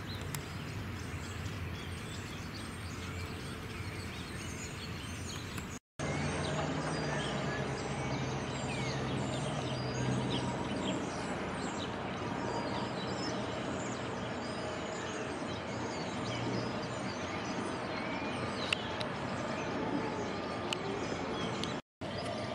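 Outdoor background noise with a low steady hum and small birds chirping here and there. The sound cuts out completely for an instant twice, about six seconds in and near the end.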